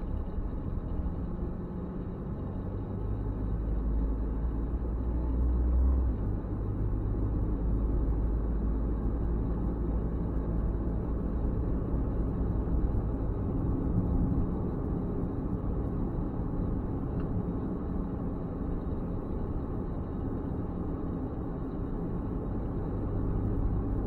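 Car driving along a road: steady low rumble of tyre and engine noise.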